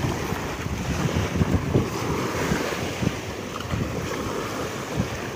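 Sea waves washing and wind buffeting the microphone in a steady, gusty rumble.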